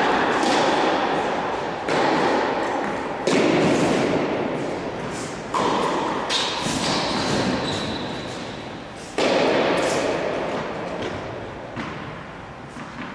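Tennis ball struck back and forth with racquets in a rally, one sharp hit every two seconds or so, with a longer gap before the last. Each hit echoes long in a large indoor tennis hall.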